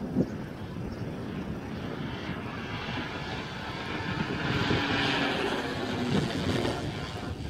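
Giant-scale Extra 330SC radio-controlled aerobatic model plane flying by, its engine and propeller droning steadily, growing louder to a peak about five seconds in and then fading a little as it passes.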